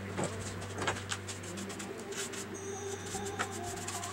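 Wooden strips and a steel framing square being handled and set down on a plywood jig: scattered light knocks and taps over a steady low hum, with a brief high tone near the middle.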